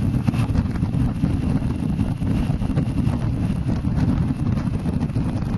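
Heavy, steady wind buffeting on the microphone of a camera riding on a moving motorcycle, a dense low rumble with the ride's road noise underneath.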